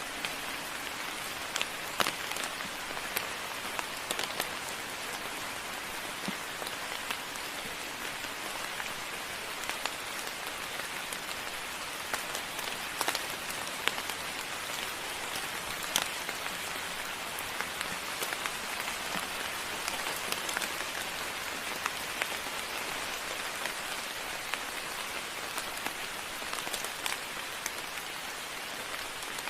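Steady moderate rain falling, a continuous hiss with scattered louder drops hitting close by.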